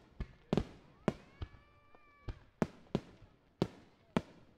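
Aerial fireworks shells bursting in a quick irregular string of about ten sharp bangs, each with a short rumbling echo.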